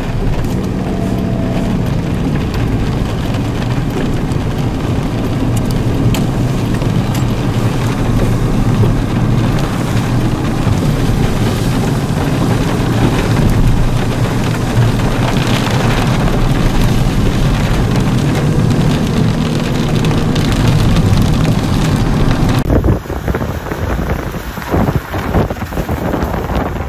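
Car driving on a wet road in rain: steady road noise with rain hitting the windshield. About 23 seconds in, the sound changes abruptly to gusty wind buffeting the microphone.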